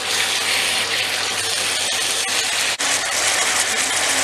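Freshly added raw chicken pieces sizzling steadily in hot oil in a frying pan as they are stirred.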